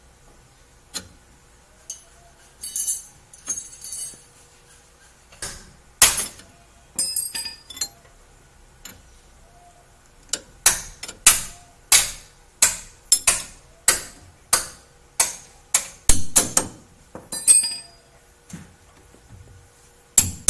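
Sharp metallic clinks of a wrench on the stud nut of a new suspension ball joint as the nut is tightened. A few scattered clicks at first, then a steady run of ringing clinks about two a second through the second half.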